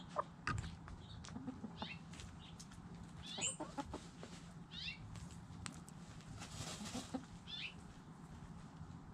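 Chickens scratching and dust bathing in loose dry dirt: scattered scrapes and clicks of soil, and a brief flurry of flapping and flung dirt about six and a half seconds in. Short high bird chirps come several times.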